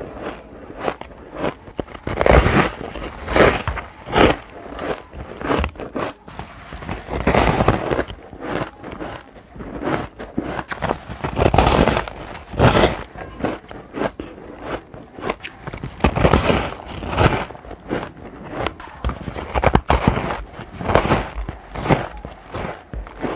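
Ice being bitten and crunched in the mouth close to the microphone: a continuous run of irregular, crackling crunches with louder bites every second or so.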